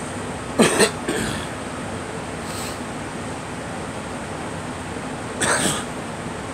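A person coughing: two sharp coughs close together about half a second in, a weaker one just after, and another cough near the end. Allergy coughing, which the person puts down to allergies flaring up.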